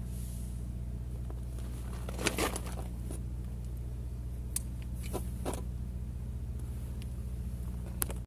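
Scattered clicks and taps of hands handling wiring and a terminal on a water pump, about six in all, over a steady low hum.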